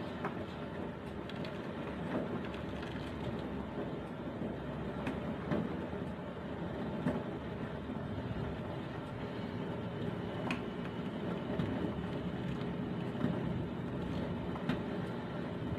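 Steady low rush of a gas stove burner under a pot of simmering soup, with a few light clicks of a metal spoon against the stainless steel pot as the soup is stirred.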